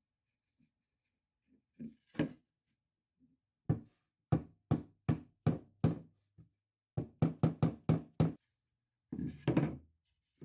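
Runs of sharp knocks on a wooden picture frame as its mitre joints are reinforced, about two to four strikes a second in three groups with short pauses, the last group the loudest.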